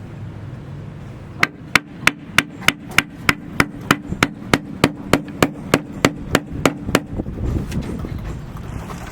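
Hammer blows in a steady rhythm, about three a second, starting about a second and a half in and stopping about seven seconds in, roughly nineteen strikes in all.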